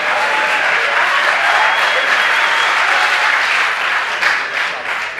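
Live theatre audience applauding, a dense steady clapping that dies away near the end.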